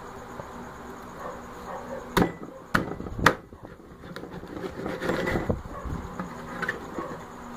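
A cleaver chopping through fried chicken onto a plastic cutting board: three sharp chops about half a second apart, a little after two seconds in. A scraping rustle follows about five seconds in as the pieces are pushed across the board.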